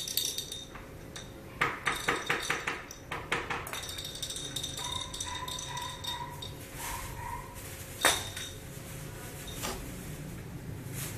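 Light clinking and clicking, like small hard objects knocking together, with a quick run of clicks about two seconds in and a single sharp click about eight seconds in.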